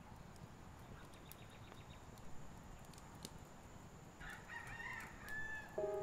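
A rooster crowing once, faintly, about four seconds in, over a quiet outdoor background. Piano music starts just before the end.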